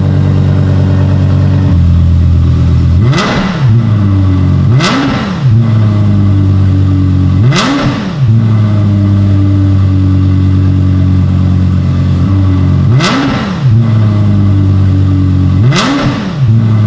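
Lexus LFA's 4.8-litre V10 idling at the exhaust with five sharp throttle blips, each a quick rise and fall in pitch before settling back to idle.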